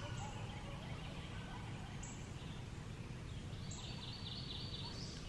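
Woodland ambience: a steady low rumble with faint bird calls recurring about every two seconds, joined about four seconds in by a steady high-pitched buzzing trill.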